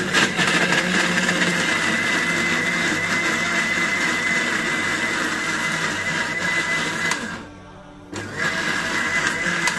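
Panasonic countertop blender running on a wet mixture of chopped ingredients, oil and water, with a steady high whine over the motor noise. It stops about seven seconds in and starts again less than a second later.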